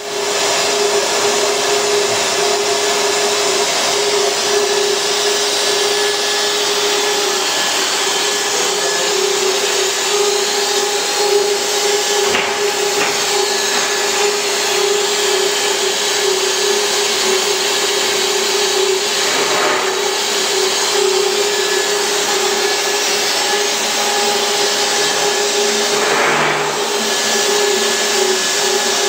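PVC profile extrusion line running: a steady mechanical whir and airy hiss with a constant mid-pitched hum held underneath.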